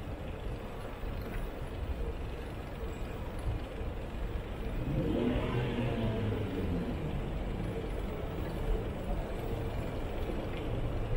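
City street traffic: a steady low rumble of road noise, with a vehicle passing close and louder about five seconds in.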